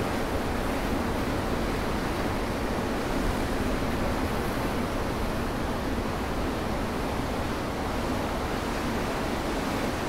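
Rough surf breaking over rocks along a rocky shore: a steady, continuous roar and wash of waves with no single break standing out.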